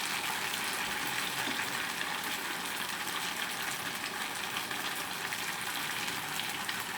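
Tofu and tofu skin sizzling steadily in hot oil in a frying pan.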